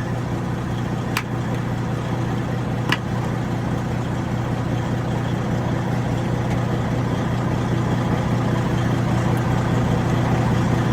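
Freightliner Century semi truck's diesel engine idling steadily, with two short sharp clicks about one and three seconds in.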